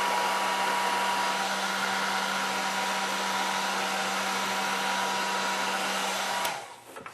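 Cheap electric heat gun running steadily, a rush of hot air with a constant hum, shrinking adhesive-lined heat-shrink tubing over a crimped wire butt splice. It switches off near the end.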